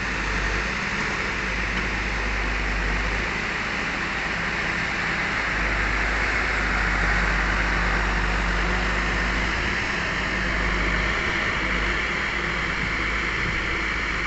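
Heavy diesel engine of working machinery running steadily, a low hum under a strong hiss.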